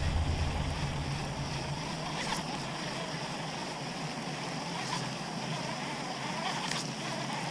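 Steady outdoor wind and water noise, with a few faint light clicks spaced about two seconds apart.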